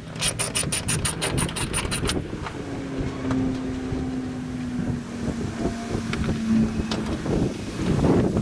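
Socket ratchet clicking rapidly as a nut is run off, stopping about two seconds in. Then a steady low hum, falling slightly in pitch, with wind on the microphone.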